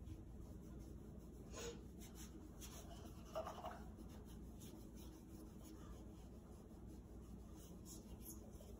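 Faint strokes of paintbrushes brushing washable finger paint onto window glass over quiet room tone, with a brief soft sound about three and a half seconds in.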